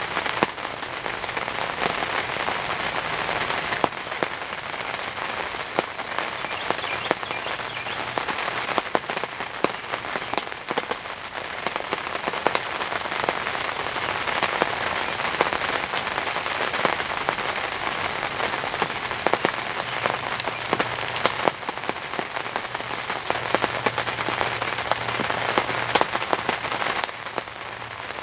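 Heavy rain falling steadily, with many individual drops striking close by as sharp ticks.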